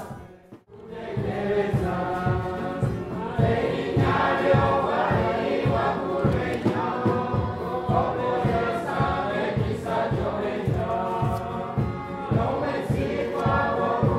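Choir singing over a steady drum beat, starting about half a second in after a brief quiet gap.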